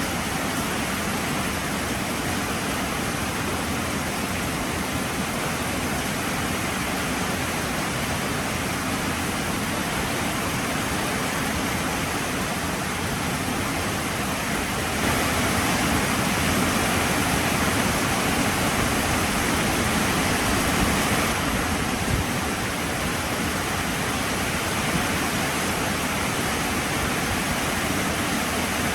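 Heavy rain falling, a steady dense hiss that grows louder for several seconds about halfway through.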